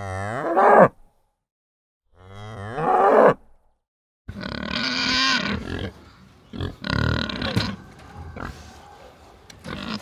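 A cow mooing twice, two long calls with a silent gap between them. From about four seconds in, a pig grunting in loud, rough bursts.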